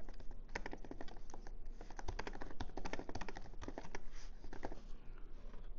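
Typing on a 2016 MacBook Pro's flat butterfly-switch keyboard: a quick, uneven run of soft key clicks as a sentence is typed with two fingers, thinning out near the end.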